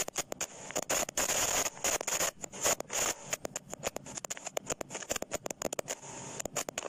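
Irregular scratching and rubbing noises with dense clicks and short crackly bursts, over a steady high hiss.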